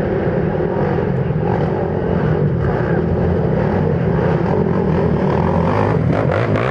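Quad bike (ATV) engine running steadily.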